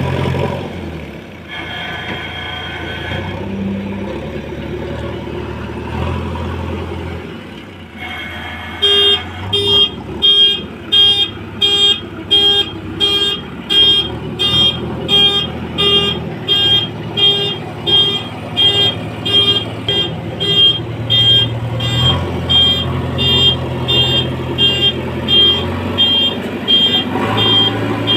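JCB 3DX backhoe loader's diesel engine running, its pitch shifting with load. About a third of the way in, a reversing alarm starts beeping steadily, about two beeps a second, and keeps on over the engine.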